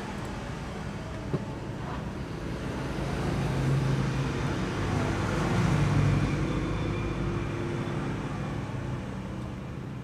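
Road traffic noise with an engine passing close by, swelling to its loudest about four to six seconds in and then easing off; a single light click just over a second in.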